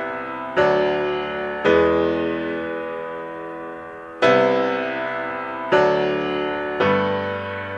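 Background music: slow chords on a piano-like keyboard, five struck in turn, each left to ring and fade before the next.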